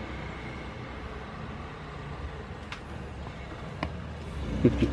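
Steady low background rumble with a few faint clicks; the rumble grows louder near the end.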